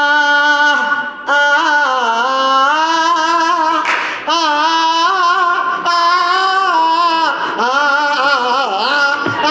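A woman singing long held, wavering notes with vibrato and sliding pitch, with no clear words, in several phrases broken by short breaths.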